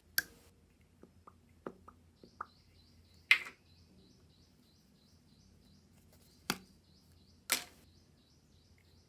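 Putty slime being pressed and stretched by hand, giving sharp clicking pops: a few small ones at first, the loudest about three seconds in and two more near the end. A faint, quick, high chirping runs underneath from about two seconds in.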